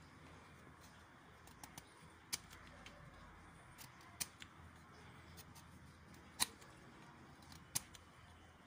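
A knife blade slicing into a small citrus scion, making several short, sharp clicks a second or two apart as the end is shaved from both sides into a wedge for a cleft graft.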